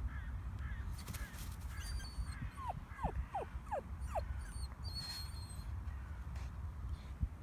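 Pomsky puppy whimpering, with a quick run of about four short whines falling in pitch in the middle, softer ones before them, and wind rumbling on the microphone.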